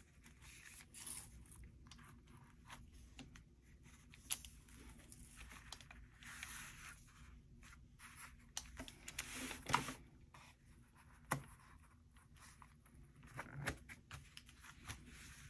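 Faint rustling and scraping of stiff book boards and paper being slid into place and pressed down by hand, with a few light knocks of board on the cutting mat.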